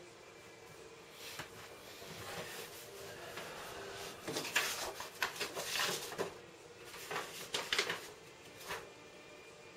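Short scrapes, knocks and rustles of objects being handled on a table and a sheet of paper being picked up, coming in a cluster from about four seconds in and again shortly before the end.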